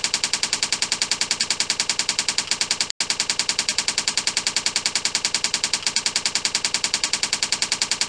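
Typewriter-style keystroke sound effect: a rapid, even clicking of about nine keystrokes a second, keeping time with text typing itself out on screen, with one brief break about three seconds in.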